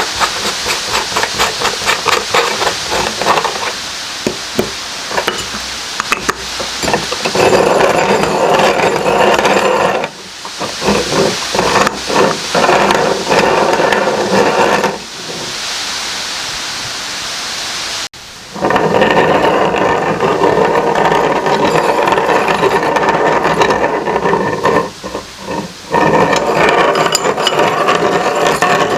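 Meat grinder grinding food. It begins with rapid crackling, then runs in several stretches that stop and start again, one cutting off sharply about two-thirds of the way through.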